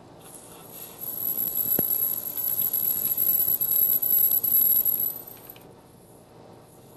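A lathe cutting tool taking a light cut into an aluminium disc gives a loud, high-pitched ringing. It swells about a second in and cuts off after about five seconds, with a single click near two seconds.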